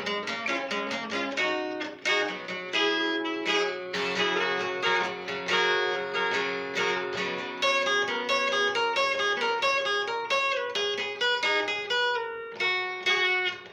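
Acoustic guitar played solo in a country blues style: a steady stream of picked notes and chords ringing over a repeating bass.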